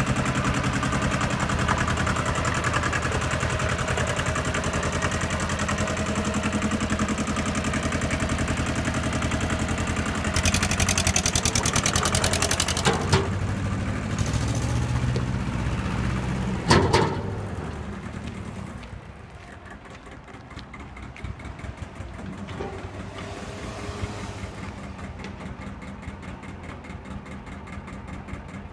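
Small Japanese compact tractor's diesel engine running steadily, then revving harder for a few seconds as it drives off. A sharp knock comes partway through, after which the engine sound falls much quieter.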